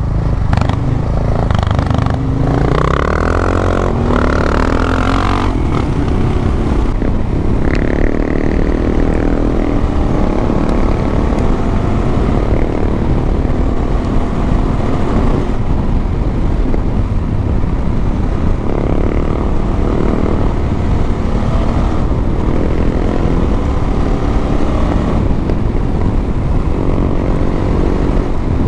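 Adventure motorcycle being ridden on a dirt trail: the engine rises in pitch as it accelerates a few seconds in, then runs on steadily under load, with wind rushing over the microphone.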